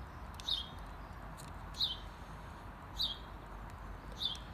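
A small bird calling four times, a short high chirp falling in pitch about every second and a quarter, over a steady low wind rush.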